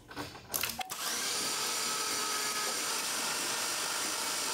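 Car engine cranked over by its starter with the fuel pump disabled, so it turns without starting. A few light clicks, then about a second in a steady, fast, even whir as the engine spins over quickly and easily.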